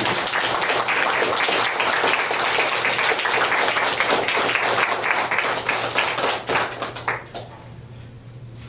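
Small audience applauding, the clapping thinning out and dying away about seven seconds in.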